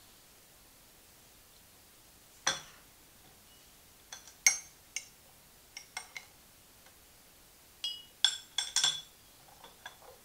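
Metal teaspoon clinking against a ceramic cup and saucer as a drink is stirred: a scatter of short, ringing clinks, with several in quick succession about eight seconds in.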